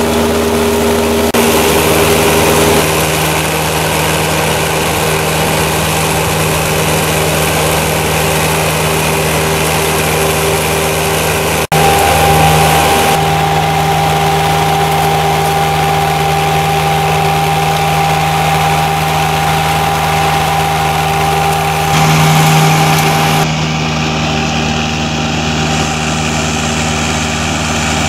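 Berti E-Trail remote-controlled tracked flail mulcher running steadily as it mulches grass and brush, its engine and spinning flail rotor giving a constant drone with a steady whine over it. The sound cuts out for an instant about 12 seconds in and shifts in tone again near the end.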